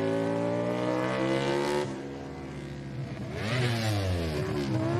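Aprilia MotoGP race bike's V4 engine held at high revs. Its note drops off suddenly about two seconds in, then it revs up and down in quick throttle blips from about three and a half seconds in.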